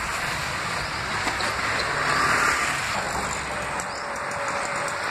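Steady background noise of road traffic, with no single event standing out.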